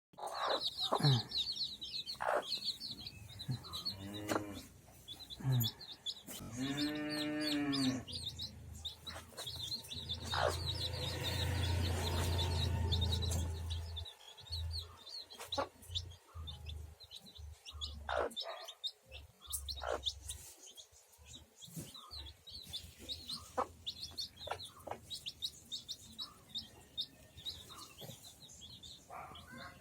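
Chicks peeping continuously in a rapid high chatter, with a hen's clucks and calls over them, one longer drawn-out call about seven seconds in.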